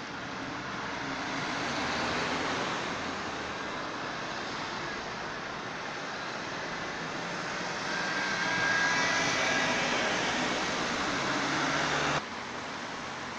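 Urban road traffic: cars and a city bus driving through a junction, a steady rumble of engines and tyres that swells as vehicles pass close, loudest in the later part with a faint high whine. It cuts off abruptly about twelve seconds in.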